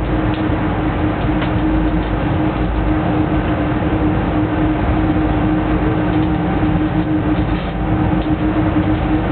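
Siemens Taurus electric locomotive running along the line, heard from inside its cab: a steady rumble of wheels on rail with a constant hum and a few faint clicks.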